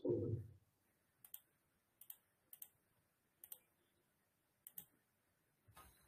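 Faint computer mouse clicks, mostly in quick pairs, about every second; a louder noise dies away in the first half second.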